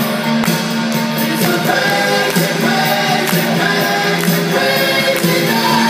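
Music playing: a pop song.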